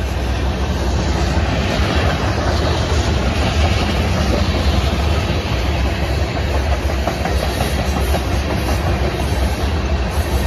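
Boxcars and tank cars of a mixed freight train rolling past close by: a steady, loud rumble of steel wheels on the rails, heaviest in the low end.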